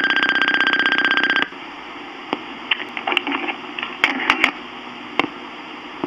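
A Sanyo answering machine plays back its message cassette with a steady, buzzing electronic tone that cuts off suddenly about a second and a half in. Tape hiss remains, broken by scattered clicks and a few short faint sounds.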